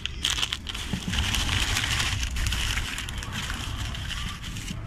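Broken Tostitos tortilla chips sliding out of their crinkling plastic bag into a bowl, a run of crackles and rustles, over a low steady rumble.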